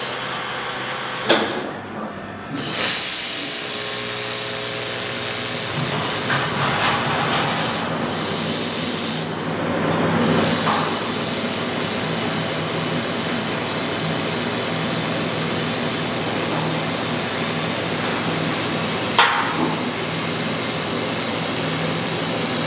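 Welding gun running with a steady hiss that cuts out briefly twice, over a low steady machine hum.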